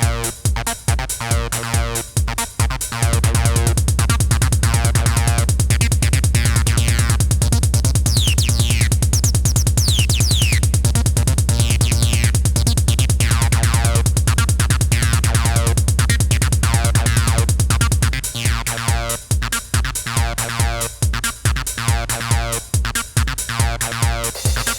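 Acid house played live on a Behringer RD-9 drum machine and Behringer TD-3 bass synthesizer. A few seconds in, the pulsing beat gives way to a dense, rapidly repeating pattern over a steady low drone, with falling high sweeps partway through. The pulsing beat returns in the last quarter.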